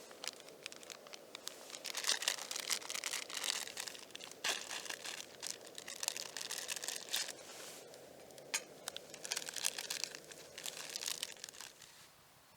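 Crinkling and rustling of something being handled, in two spells of a few seconds each, full of small crackles.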